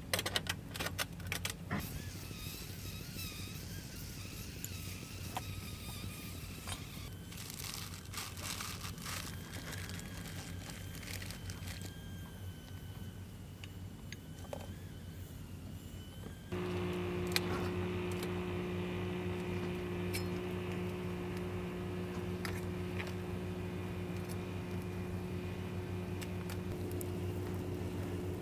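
Steel dishes clinking as they are set on a stainless steel tray, over a steady low hum. About two-thirds of the way through, a louder, steady droning hum starts abruptly.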